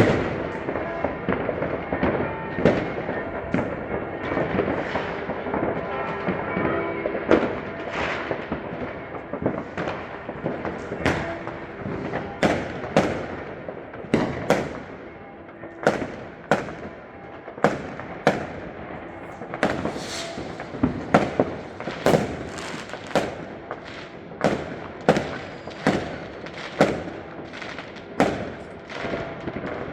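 New Year's Eve fireworks and firecrackers going off in a long run of sharp bangs. The bangs are dense and overlapping at first, then come singly about once a second in the second half.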